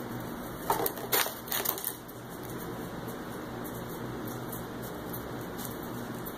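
German shepherd puppies playing and chewing a toy on a tile floor: a few short crunchy clicks and scrapes about a second in.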